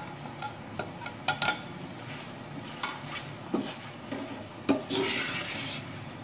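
Long metal spoon stirring and scraping in an aluminium cooking pot, with a few sharp clinks of metal on metal as spices are mixed into the chicken masala. About five seconds in there is a brief hiss.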